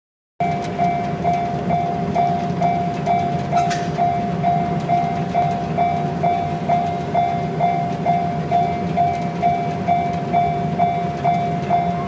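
Japanese railway level-crossing warning alarm ringing its repeating electronic ding at about two strikes a second, the signal that a train is approaching and the barriers are about to come down.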